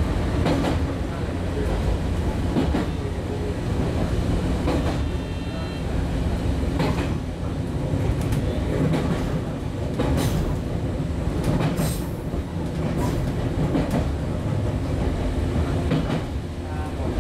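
Cabin running sound of a 115-series electric multiple unit under way: a steady low rumble of wheels on track, broken by clacks over rail joints at irregular intervals.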